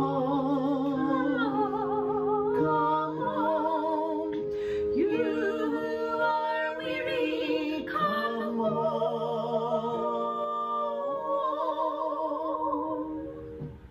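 A solo voice singing slowly with vibrato over steady, held accompaniment chords. The music changes chord every second or two and dies away just before the end.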